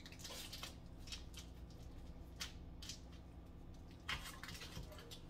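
Foil wrapper being peeled off a block of cream cheese: faint crinkling and rustling, a few short crinkles scattered through, over a low steady hum.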